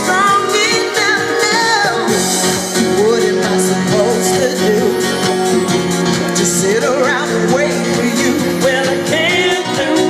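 A song with singing over guitar and other instruments, a steady full mix.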